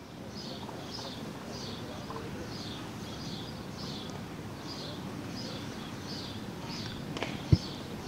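Outdoor ambience: a bird repeating a short high chirp steadily, a little under two a second, over a low background rumble. Near the end come a sharp click and then a loud thump.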